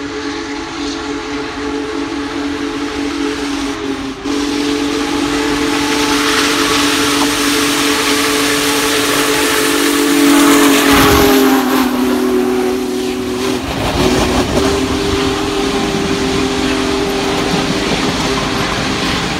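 Union Pacific Big Boy No. 4014 steam locomotive sounding its steam whistle in one long, steady chord as it approaches and passes. The chord drops in pitch as the engine goes by, about eleven seconds in. Under it, the rush of the train grows louder and carries on as the passenger cars roll past.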